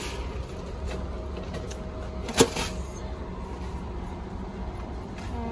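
A plastic tub set down in a wire shopping cart, giving a single sharp knock about two and a half seconds in, over a steady low rumble.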